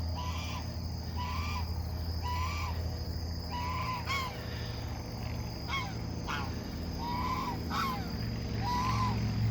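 Domestic geese honking over and over, about one call a second, with a few sharper rising calls among them in the second half. A steady low hum runs underneath.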